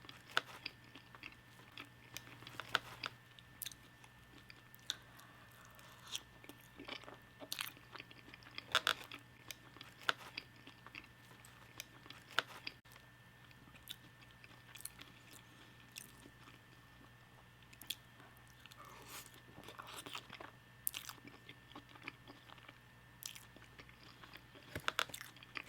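Close-miked eating sounds: irregular bites, crunches and chewing of crispy fried food, quiet between scattered sharp crunches.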